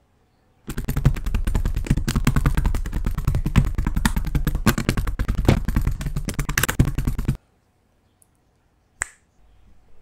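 Kemove K68 mechanical keyboard with its keycaps off, the bare red switches clacking in a fast, dense run of clicks that starts and stops abruptly. A single sharp click follows near the end.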